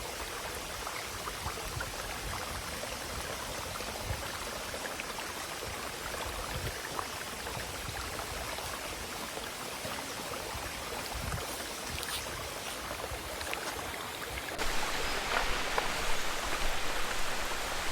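Small forest stream flowing: a steady rushing hiss of water, a little louder for the last few seconds.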